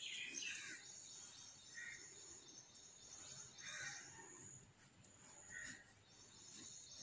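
Near silence, with a few faint, soft scratches of a mechanical pencil drawing a long curved line on paper.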